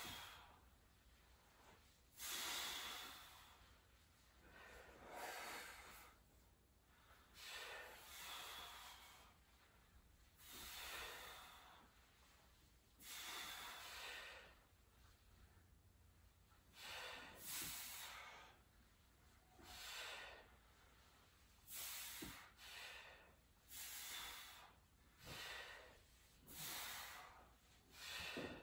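People exhaling hard through the mouth in a long series of hissing breaths, one every one to two seconds. Each breath pushes the air out to brace the abdominal muscles while the legs are lowered.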